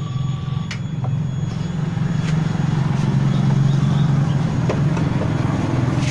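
Steady low mechanical drone, like a running engine, with a few faint clicks of metal parts being handled.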